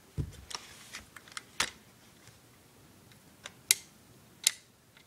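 Sharp, irregular metal clicks and snaps from needle-nose pliers working the fire selector lever of an airsoft AK-47, tightening the loose selector. A short dull thump comes just after the start.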